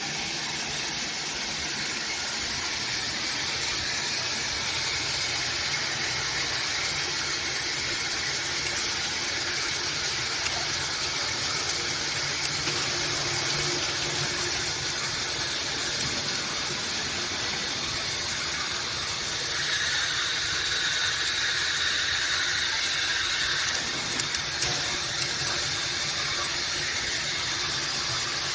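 Water spraying steadily from the MakeFit filtered shower head, a continuous hiss of spray; its tone shifts slightly about two-thirds of the way through.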